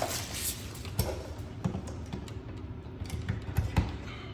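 Scattered light clicks and taps of packaging and small plastic parts being handled during an unboxing, with a few slightly louder knocks about a second in and after the middle.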